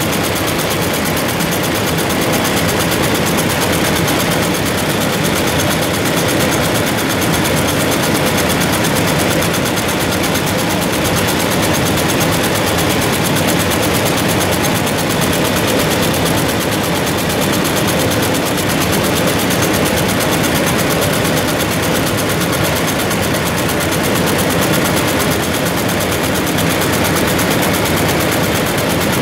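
BQ198 automatic warp knotting machine running, a fast, steady mechanical clatter as it works along the warp, tying thread ends one after another.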